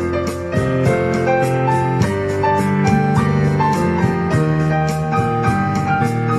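Background piano music with a steady beat.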